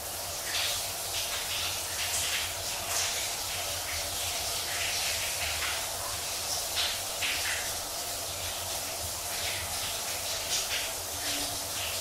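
Handheld shower head running: a steady hiss of water spray, with irregular splashes spattering through it.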